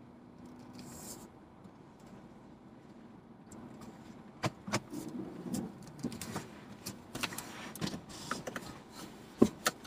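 Inside a car cabin: a faint steady low hum, then from about halfway a run of irregular sharp clicks and knocks, the loudest one near the end.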